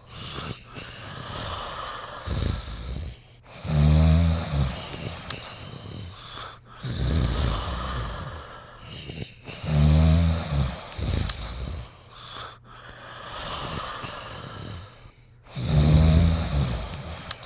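A sleeping pet snoring: three loud, deep snores about six seconds apart, with softer breaths between them.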